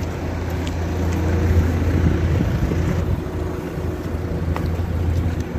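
Wind buffeting the microphone of a handheld camera outdoors: a steady low rumble, with a faint steady hum beneath it and a few light ticks.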